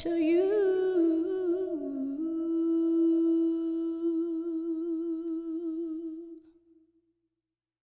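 Background song: a singer's voice moves through a short phrase, then holds one long note with vibrato that fades out about six and a half seconds in. Silence follows.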